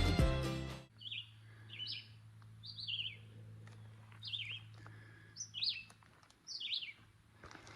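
Background music fades out about a second in, then a songbird sings short high chirping phrases, about six of them, roughly a second apart.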